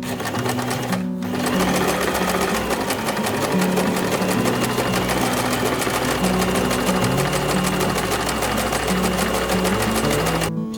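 Sewing machine stitching at a steady, fast rate while sewing a blind hem with a blind hem presser foot. It starts about a second in and stops near the end, over background guitar music.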